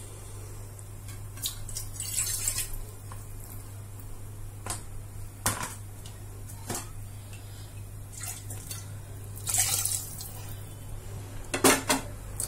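Water poured from a metal vessel into a pressure cooker of soaked basmati rice and vegetables, in two splashy pours about 2 seconds and about 9 seconds in. Metal pots clink and knock in between, with the loudest clatter near the end, over a steady low hum.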